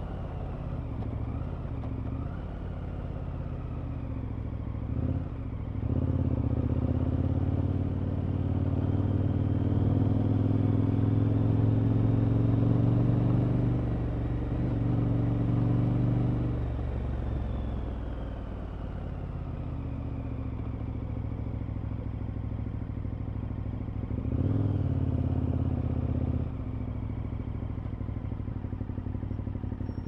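KTM 1190 Adventure's V-twin engine running through an Akrapovic exhaust on a ride. The engine note gets louder from about six seconds in for some ten seconds, eases off, and swells again briefly near twenty-five seconds.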